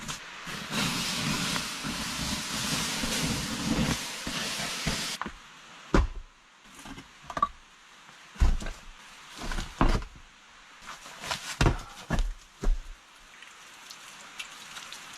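Campfire being doused: water hisses and steams on the hot coals for about five seconds, then stops abruptly. A run of separate knocks and thumps follows.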